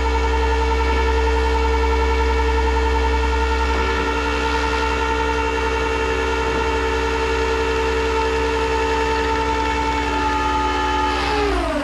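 Winch motor of a car hauler running steadily under load with a whine of several tones over a low hum, pulling the car on; near the end it winds down in pitch and stops.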